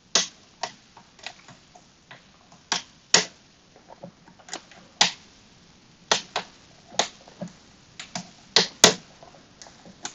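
Irregular sharp metallic clicks and ticks, about two a second and uneven in loudness, from a hook pick and tension tool working the sliders of a Kwikset SmartKey Gen 2 lock during picking.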